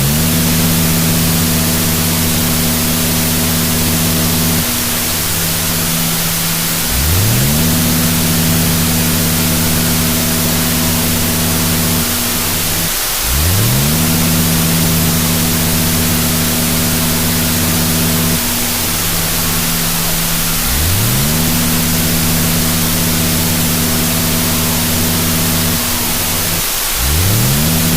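Heavy static hiss with a low buzzing drone. About every seven seconds the drone cuts out, sweeps quickly up in pitch and then holds steady.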